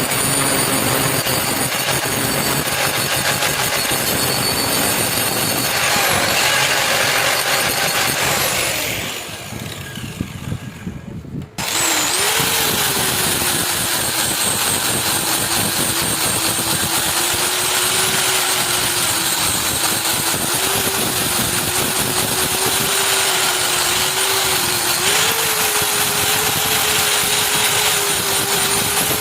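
An electric power tool working on the metal blade, running with a loud, rough noise. It winds down about nine seconds in, then starts again abruptly and runs on with a steady motor hum.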